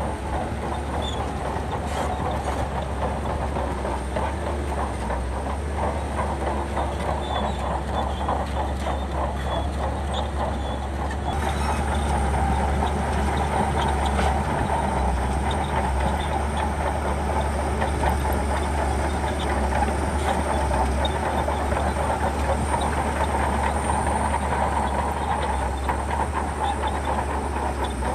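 Shantui crawler bulldozer's diesel engine running steadily with a continuous rapid clatter of its steel tracks. It grows louder and brighter about eleven seconds in.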